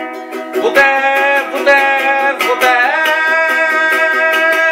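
Ukulele strummed in a quick, even rhythm, with a man's voice singing along over the chords.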